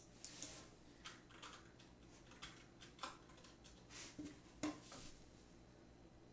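Faint, irregular clicks of a computer mouse against near silence, the loudest about four and a half seconds in.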